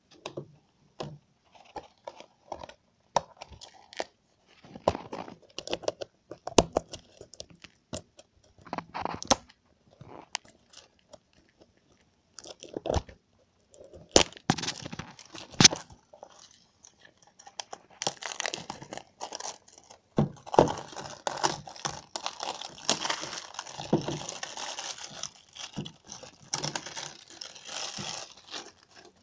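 Clear plastic shrinkwrap being picked at, torn and peeled off a sealed Betamax cassette's sleeve: scattered crackles and tears at first, then dense, continuous crinkling in the last third as the wrap is pulled off and crumpled.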